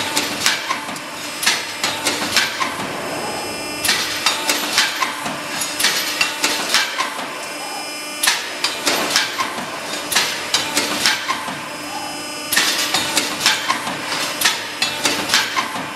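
CNC hydraulic tube-punching press punching slots in a round steel tube: sharp metallic punch strikes about twice a second in runs, with pauses of a second or so as the tube is fed on. Under them the hydraulic power unit hums steadily.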